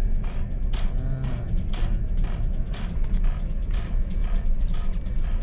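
Low, steady hum of ship's machinery under a run of light mechanical clicks and creaks, about two to three a second. The clicks come from the ship's master clock movement stepping its hands forward after a one-hour advance of local time.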